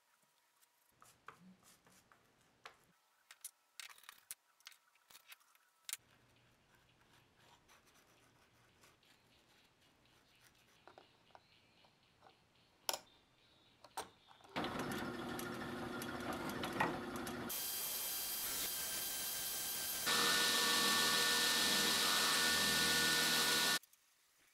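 Quiet clicks and scrapes of hand work on leather, then, about halfway in, a small power tool's motor starts and runs steadily in stretches that change in sound, loudest for the last few seconds before it cuts off suddenly.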